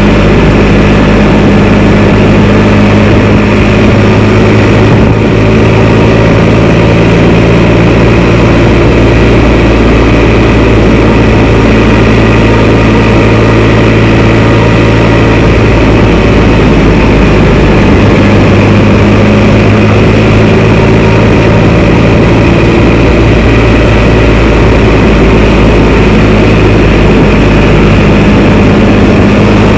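Can-Am Spyder three-wheeled motorcycle's engine running steadily on the road, a loud constant drone that holds one pitch throughout.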